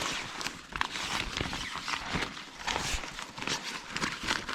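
Irregular rustling, scuffing and soft knocks from an inflatable camping pad and its fabric being unpacked and handled.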